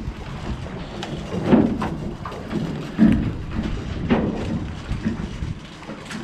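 Steady rumbling wind and sea noise on an open boat deck, with three louder surges or knocks about a second and a half, three and four seconds in.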